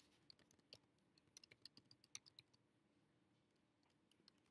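Faint typing on a computer keyboard: a quick run of keystrokes over the first two and a half seconds, then a few more keystrokes near the end, as a file name is typed in.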